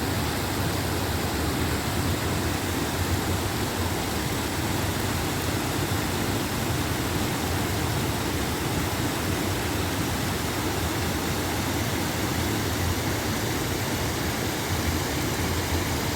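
Water pouring over an artificial garden waterfall, a steady unbroken rush.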